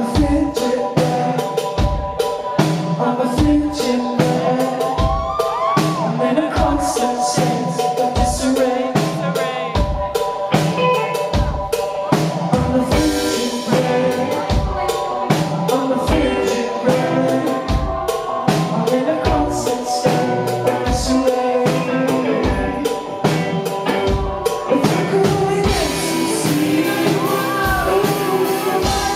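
A pop-rock band playing live through a venue PA, with a steady kick and snare beat, bass and held keyboard notes, and some singing.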